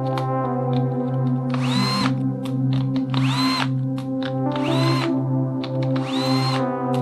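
Bosch cordless drill-driver driving out small screws in four short bursts, its motor whine rising in pitch each time it spins up. Background music plays throughout.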